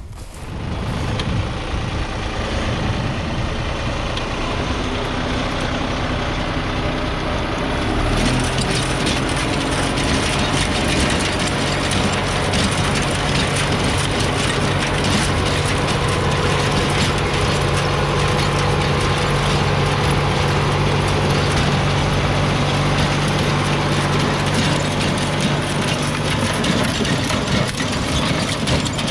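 Tractor engine running steadily, driving an old rotary tiller through rocky ground; about 8 s in the engine note deepens and grows louder as it takes on load.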